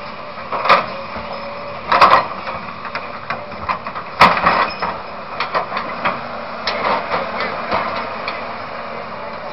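Kobelco hydraulic excavator running while its bucket digs through landslide rubble, with loud knocks of steel on rock about a second, two seconds and four seconds in, and a clatter of smaller stones and knocks after.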